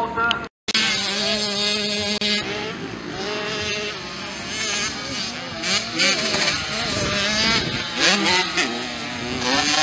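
Small motocross bike engines of a mini moto and 65cc race, revving up and down with pitch repeatedly rising and falling as the riders work the throttle around the track. The sound cuts out briefly about half a second in.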